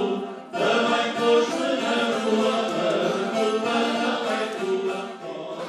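Several men singing an Alentejan folk song together, accompanied by a viola campaniça, the Alentejo's wire-strung guitar. The singing breaks off briefly about half a second in, then carries on.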